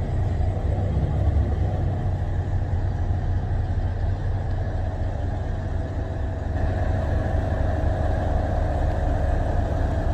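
City bus engine heard from the rear seats inside the cabin: a steady low rumble, with a steady higher whine joining about six and a half seconds in.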